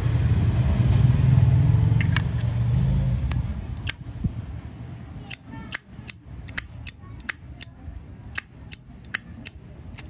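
A low rumble for the first three seconds or so, then a run of sharp metallic clicks, each with a bright ring, about two to three a second: a Zippo lighter's hinged lid being snapped open and shut over and over.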